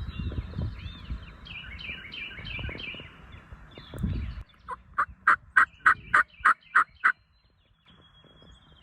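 Songbirds chirping, then a loud run of about nine sharp turkey yelps, about four a second, that stops abruptly.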